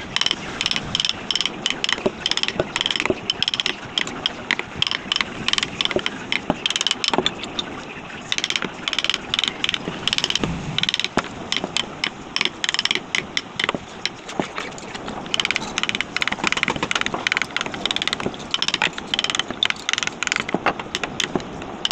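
Mallet striking a wood-carving gouge in rapid, light, repeated taps, several a second, as the gouge cuts into a relief-carved wooden panel.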